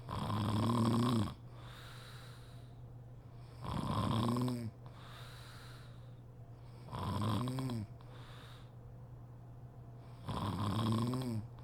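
A sleeping woman snoring in a steady rhythm: four snores about three seconds apart, each about a second long and dropping in pitch at its end, with softer breaths out between them.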